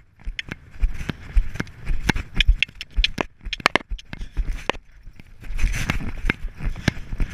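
Hoofbeats of a horse moving at speed over a gravel and sand track, heard from the saddle as irregular thuds and clicks.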